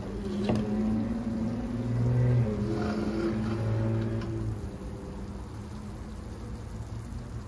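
A motor vehicle's engine running, its pitch stepping up about two seconds in, loudest in the first half and fading out about four and a half seconds in. A pan of kofte in tomato sauce sizzles underneath, with a single click about half a second in.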